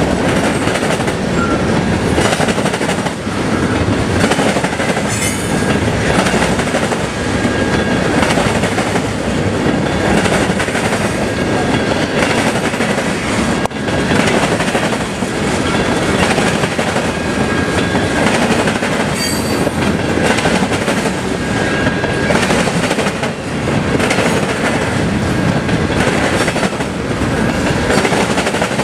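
CSX freight train's cars rolling past, steel wheels clattering on the rails in a loud, steady rumble.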